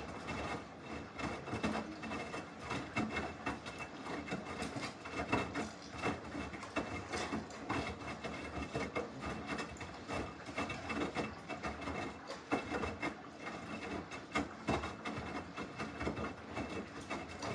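Samsung washing machine running its wash cycle, churning the clothes: a steady rattling, rubbing sound with frequent small knocks, starting abruptly.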